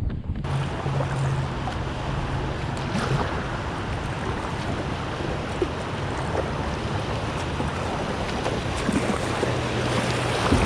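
Steady rushing, hissing noise that starts abruptly about half a second in and holds at an even level, with a faint low hum beneath it.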